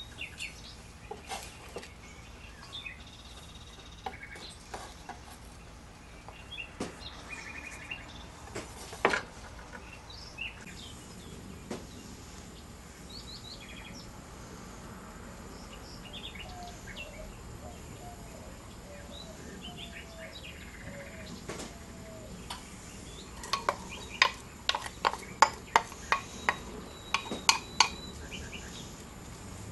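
Kitchen handling sounds: scattered light clicks and knocks of utensils and dishes, then a quick run of sharp knocks near the end as chopped onion is tipped and scraped into a nonstick frying pan.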